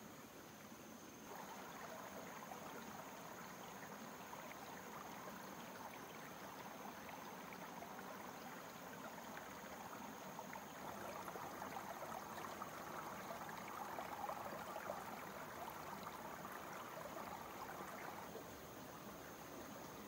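Shallow rocky stream running over stones, a steady rush of water. It comes up about a second in, is loudest in the second half, and eases near the end.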